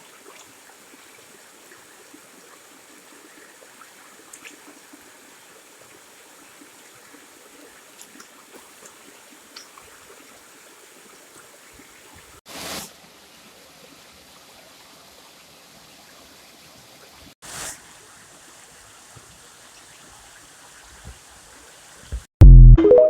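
Water flowing steadily, a soft even rush, with two brief louder swells partway through. Near the end a very loud, short pitched burst cuts in and stops abruptly.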